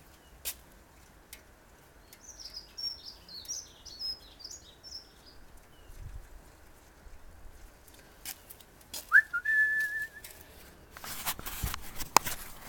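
Birds chirping in quick high twitters, then a single whistled note that rises and holds for about a second. Near the end come clicks and rustling; the engine is not running.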